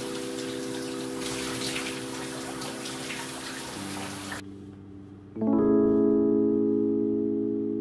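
Shower water spraying over soft background music of held keyboard chords. The water cuts off suddenly about four and a half seconds in, and a second later a louder, fuller chord comes in and slowly fades.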